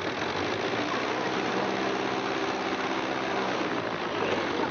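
Small propeller plane's engine idling steadily, a continuous drone.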